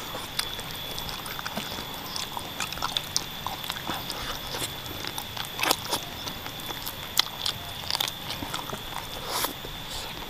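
Close-miked mouth sounds of a person chewing and gnawing soft-boned chicken feet from a bowl of meatball soup: irregular clicks and smacks, with a few louder ones partway through.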